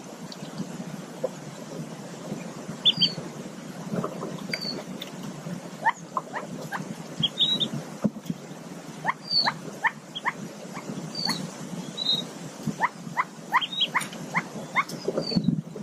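Newly hatched mallard ducklings peeping from under the hen: short high chirps and runs of three to five quick falling calls, repeated several times over a low rustle.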